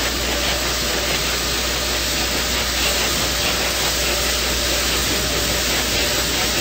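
Steady hiss with a constant low hum underneath, the open audio of a live launch-pad broadcast feed with no commentary.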